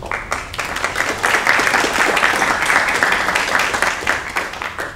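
Audience applauding, swelling over the first second and a half and tailing off near the end.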